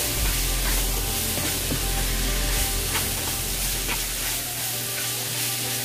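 Diced vegetables sizzling in hot oil in a nonstick pan while being stirred with a spatula, with a few faint scrapes against the pan.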